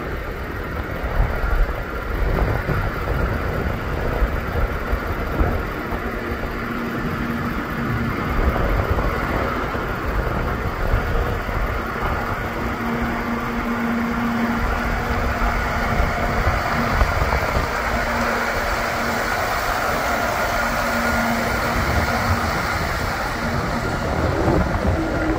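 John Deere 6195R tractor's six-cylinder diesel engine running steadily as the tractor drives at low speed, with a low hum that fades in and out.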